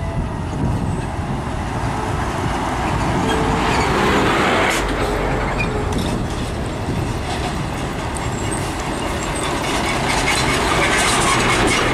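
FAW cab-over diesel tractor unit hauling a shipping container on a three-axle flatbed trailer, driving up: engine and tyre noise on the road, swelling about four seconds in and again near the end as it nears.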